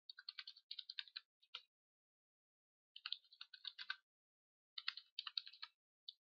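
Faint computer keyboard typing, in three quick runs of keystrokes with short pauses between them.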